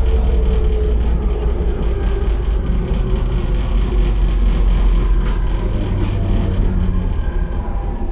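AnsaldoBreda driverless metro train running through a tunnel as it slows into a station: a steady low rumble of wheels on rail with thin traction-motor whines slowly falling in pitch.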